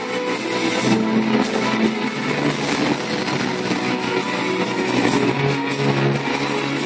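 Guitar-led music played over a PA loudspeaker, steady in level throughout.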